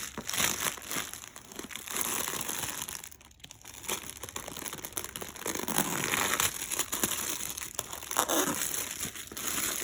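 Plastic bag crinkling and tearing as a sealed, compressed pillow is opened and pulled out, with a short lull about three seconds in.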